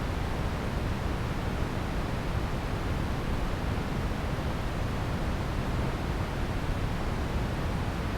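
Pink noise: a steady, even hiss, fuller in the bass than in the treble, with no change in level.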